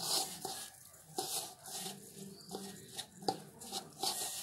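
Hand rubbing and mixing rice flour with grated carrot in a steel bowl, moistening the puttu flour: a repeated scraping swish about once a second, with a few light clicks against the bowl.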